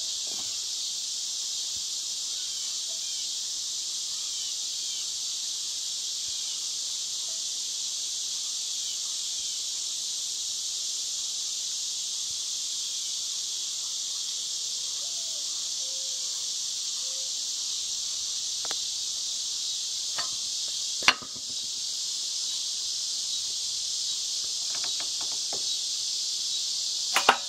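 A steady, high, unbroken chorus of insects, crickets or similar, fills the background. A single sharp knock comes about 21 seconds in, and a few light clicks come near the end.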